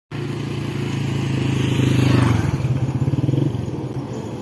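A motor vehicle's engine running, growing louder to about two seconds in and easing off after about three and a half seconds.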